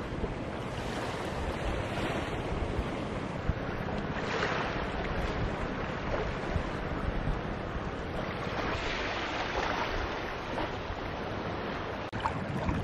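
Small waves washing onto a sandy beach, the wash swelling every few seconds, with wind noise on the microphone.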